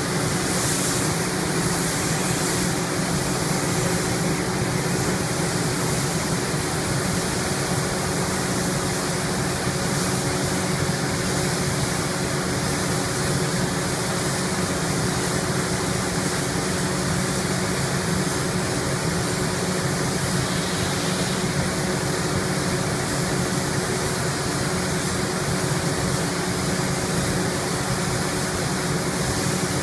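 Paint spray booth ventilation running during spray painting: a steady rush of air with a constant low motor hum.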